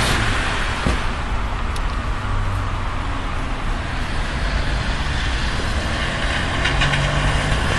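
Steady road-traffic noise, with a vehicle's low engine hum coming through near the start and again near the end.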